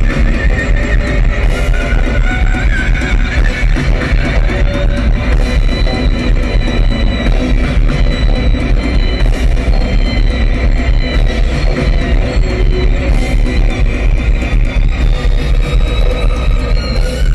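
Loud live post-rock from a Korean band that mixes traditional Korean instruments with rock instruments. Sustained melodic lines slide slowly in pitch over a dense, heavy low end.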